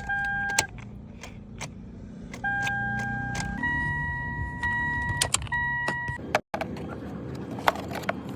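Toyota's in-cabin warning chime sounding in long steady beeps, stepping up slightly in pitch about halfway through, mixed with sharp clicks over a low hum. No starter cranking is heard, which fits the no-crank, no-start fault.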